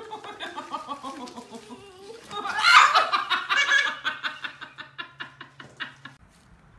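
A person laughing hard: a loud burst of laughter about two and a half seconds in, trailing off in a run of short, quick laughs.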